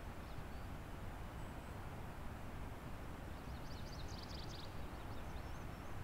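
Steady rushing of a river, heard as even white noise, with a bird chirping faintly near the start and then a quick burst of high twittering about halfway through.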